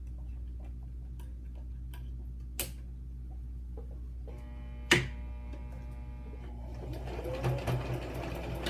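Home sewing machine stitching a fleece seam: a steady motor hum with light ticking and two sharp clicks, the second the loudest, then faster, louder pulsing stitching from about seven seconds in.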